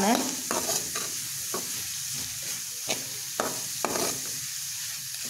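Chopped vegetables and spice powders sizzling in a metal pan while a spatula stirs them, with a handful of short scrapes and taps of the spatula against the pan. The spice powders are being roasted until their raw smell goes.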